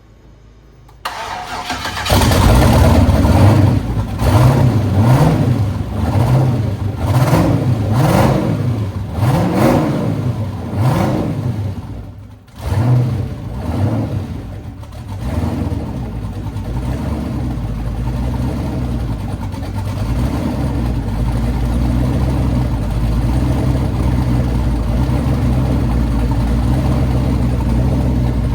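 Twin-turbo engine of a 1979 Ford Fairmont cranking briefly and catching on its first start, then blipped up and down about ten times in quick succession. About halfway through it drops almost to nothing for a moment, picks back up with a few more revs, and settles into a steady idle.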